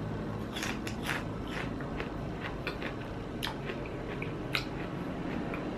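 A person chewing a mouthful of crispy fried anchovy-and-shallot sambal, with scattered small crunching clicks.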